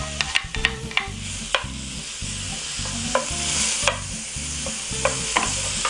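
Diced beef steak sizzling in hot butter in a ceramic nonstick frying pan, a steady hiss, while a wooden spatula stirs the meat and taps sharply against the pan a number of times.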